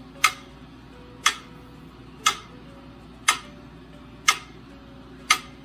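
Sharp, evenly spaced ticks, one each second, like a clock or metronome, over a faint steady hum.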